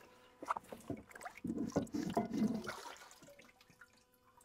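Liquid sloshing and splashing in a plastic tub of oxalic acid solution as a 40-pound dumbbell is lifted out of the bath, dripping; the splashing comes mostly in the first three seconds and dies away near the end.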